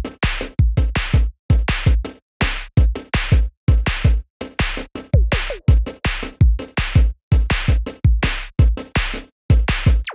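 Electronic background music built on a drum-machine beat: deep kick-drum hits that drop in pitch, in a choppy stop-start rhythm with brief dead silences between groups of hits.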